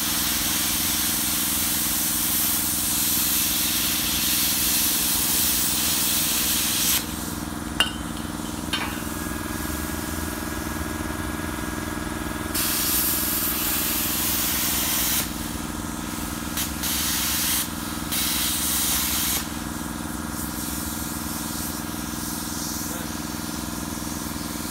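Plasma cutter torch hissing as it cuts, in one long stretch that cuts off about seven seconds in with a sharp click. It then comes back as several shorter bursts, under a steady low machine hum.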